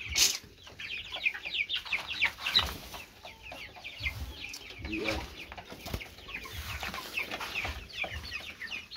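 A flock of young broiler chickens peeping continuously: many short, falling chirps overlapping one another. There is a single short knock right at the start.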